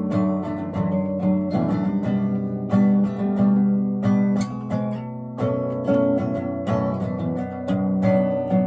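Acoustic guitar strummed in a steady, repeated pattern of chords, with no singing.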